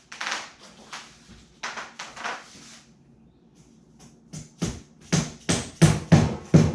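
Light tapping as wooden skewers are driven into a glued foam skeg: a few soft scrapes, then a quick run of about eight sharp taps, three or four a second, in the second half.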